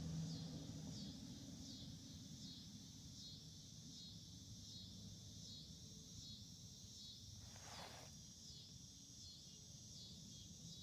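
Faint insect chorus: a steady high-pitched trill pulsing about twice a second, over a low outdoor rumble.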